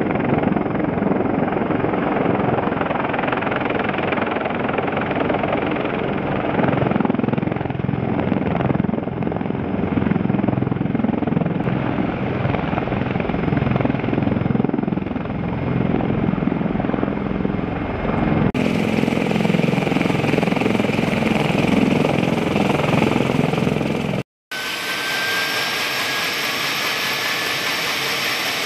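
CH-53E Super Stallion helicopters' rotors and three turboshaft engines running loud and steady as the aircraft hover and land. About 18 seconds in the sound changes abruptly to a closer, brighter recording, and after a brief dropout a high turbine whine with a slowly rising tone sounds over the rotor noise.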